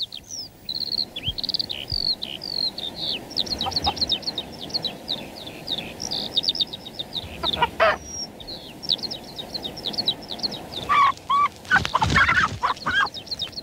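Songbirds chirping and trilling with many short, rapid high notes, with a hen's clucking squawks about eleven to thirteen seconds in.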